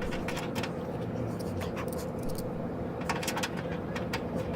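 Scattered light clicks and taps, as of small fastener hardware being handled, over a steady low hum.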